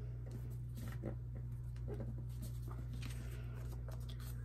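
Sheets of glued paper being pressed flat by hand and picked up off a desk: soft, scattered paper rustles and taps over a steady low hum.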